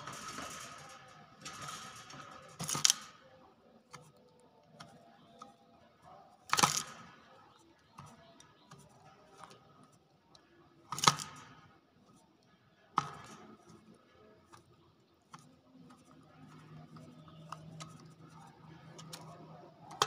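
Caged common hill myna right at the microphone: a few loud, sharp clicks and knocks several seconds apart, with quieter clicking and feather rustling between.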